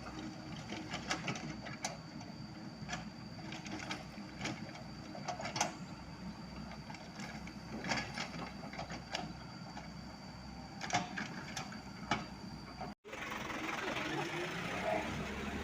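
Heavy construction machinery's diesel engine running steadily, with irregular sharp clanks and knocks of digging and loading over it and a thin high whine. The sound cuts out for an instant about 13 seconds in and comes back noisier.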